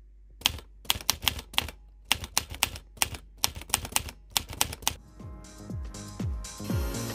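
Typewriter key-click sound effect: a fast, uneven run of clacks lasting about four and a half seconds as on-screen text is typed out. Music with deep, falling bass hits comes in near the end.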